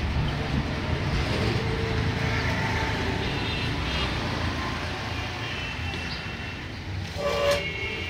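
Steady low rumble of vehicle traffic, with a short horn toot about seven seconds in.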